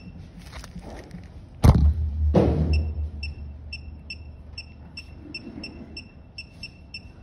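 Two thumps about two seconds in, then a run of short high electronic beeps, about three a second, from a phone-screen tester as a finger taps the screen through its test displays.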